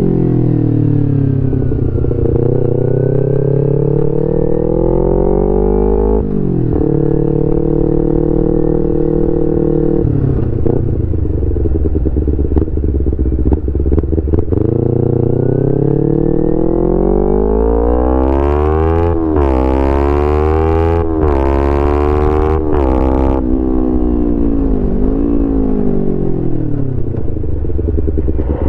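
2011 Kawasaki Ninja 250R's parallel-twin engine through a full Graves racing exhaust, accelerating and shifting through the gears: the pitch climbs and drops sharply at each upshift, then falls and rises again as the bike slows and picks up speed.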